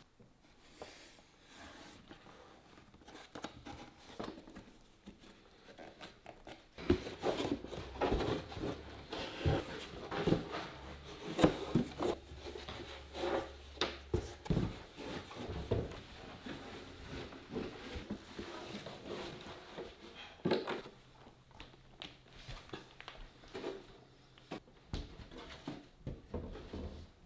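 Irregular light knocks, taps and scrapes of hand work in a small workshop, busiest and loudest through the middle stretch, with a faint low hum under part of it.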